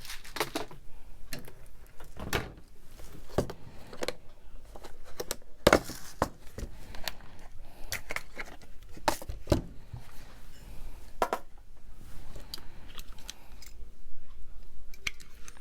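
Craft tools and materials handled on a work table: irregular clicks, taps and light knocks, with a few louder knocks about 6 and 9 seconds in.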